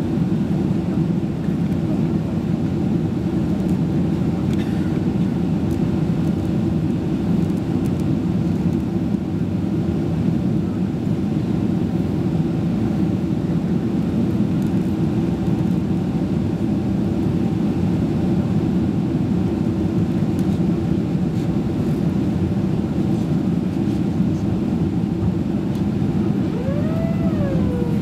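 Steady cabin noise of a Boeing 767-336 in flight: a constant deep rumble of its Rolls-Royce RB211 engines and the airflow past the fuselage, heard from a window seat.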